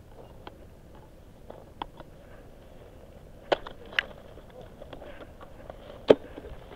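Ice axe picks and crampons biting into hard frozen snow and ice on a steep gully: a handful of sharp knocks, the loudest about six seconds in.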